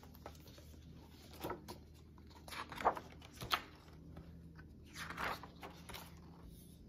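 Pages of a picture book being opened and turned: several short, soft paper swishes and rustles.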